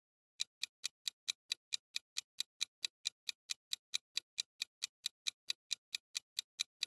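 Countdown-timer ticking sound effect: about thirty sharp, even clock ticks, roughly four and a half a second, starting just under half a second in.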